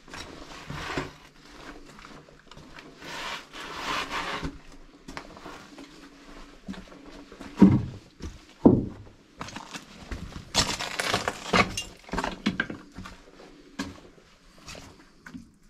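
Footsteps crunching and scuffing over rubble and debris on an uneven tunnel floor, with two louder thumps about halfway through.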